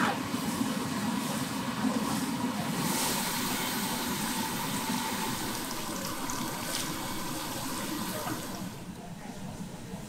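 Water running and splashing into a basin of bok choy, a steady rushing sound that quietens about eight and a half seconds in.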